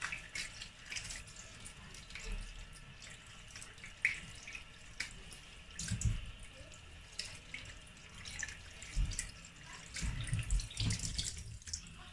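Tap water running into a sink while raw mackerel is rinsed and rubbed by hand on a plastic cutting board, with splashing and a few soft knocks.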